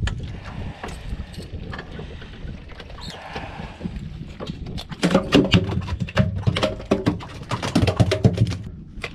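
Tautog flopping on an aluminum boat deck: a dense run of quick slaps and knocks from about five seconds in, over a steady hiss of wind and water.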